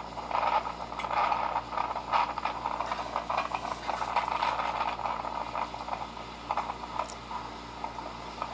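Typhoon-force wind blowing steadily, with a dense, irregular clattering and rattling through it.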